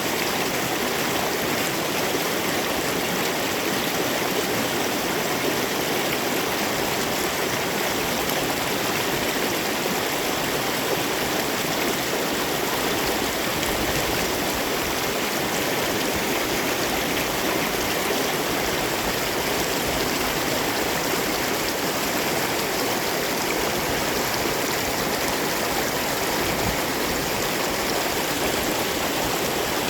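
Glacial meltwater torrent rushing steadily, a constant full roar of fast-flowing water.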